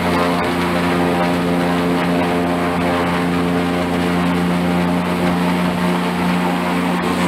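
Airboat's engine and aircraft-style propeller running steadily and loudly, with an even, unchanging drone.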